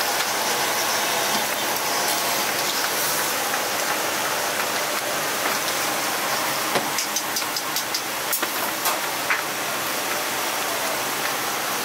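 Steady hissing kitchen noise, with a few light slaps and taps of bread dough being worked by hand on a floured counter about seven to nine seconds in.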